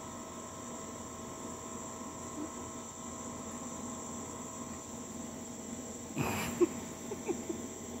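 Steady, high-pitched chorus of night insects. About six seconds in there is a short flurry of scuffs and knocks, the loudest a sharp knock: a chihuahua scrambling and pouncing on wooden deck boards.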